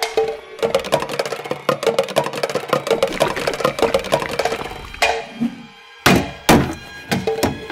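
Cartoon soundtrack music: busy, fast percussive tapping like a wood block over a held note, followed by a few loud sharp knocks about five to six and a half seconds in.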